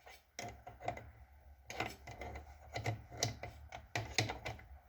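Craftsman 109 lathe running with a low steady hum while a 1/2 inch drill bit held in the tailstock cuts through the work, giving irregular clicking and scraping from the cut.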